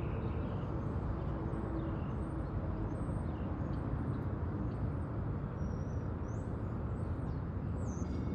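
A steady low outdoor rumble with faint bird chirps above it.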